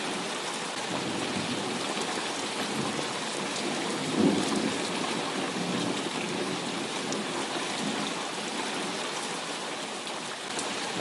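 Heavy rain falling steadily, with a short burst of thunder about four seconds in that fades over about a second.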